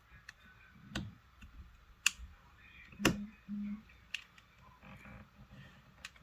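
Scattered sharp clicks and taps of small tools and phone parts being handled on a repair bench, about five in all, the loudest about three seconds in, followed by a short low buzz.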